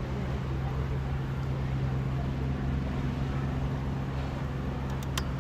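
A boat's engine running with a steady low drone, with a short tick about five seconds in.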